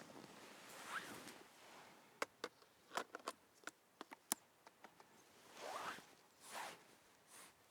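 Camera gear being handled at close range while a lens is swapped: a couple of short zip-like rasps and fabric rustling, with a string of sharp, irregular small clicks in the middle, such as lens caps and a lens bayonet mount being worked.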